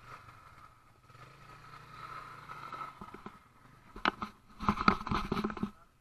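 Faint steady low hum of an ATV engine idling, then from about four seconds in loud rustling and knocks as fabric rubs over the camera and it is handled.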